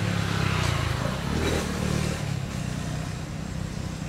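A motor vehicle's engine running, loudest in the first two seconds and easing off after.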